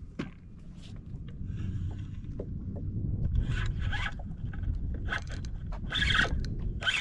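Fishing reel sounding in short rasping bursts, about two a second, from about three seconds in, with a fish pulling on the line and bending the rod.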